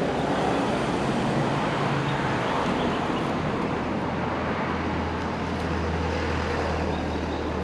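Steady road traffic noise, with a low engine hum that grows stronger about halfway through.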